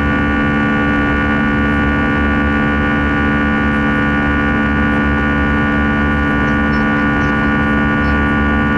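Airbus A320 turbofan engine heard from inside the cabin at high thrust: a steady, loud drone carrying a cluster of held buzzing tones. This is the buzzsaw sound of the fan blade tips running supersonic.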